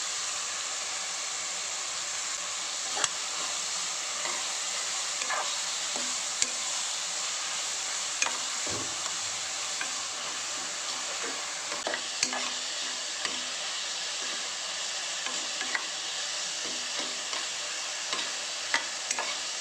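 Diced eggplant, onion and tomato sizzling steadily in hot oil in a pressure cooker while a metal ladle stirs them, with short scrapes and clinks of the ladle against the pan every few seconds.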